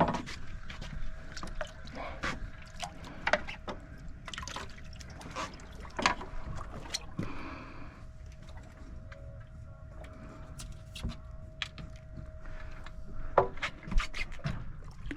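Water slapping against the hull of a drifting boat, with scattered clicks and knocks from gear on deck and a faint steady tone that stops near the end.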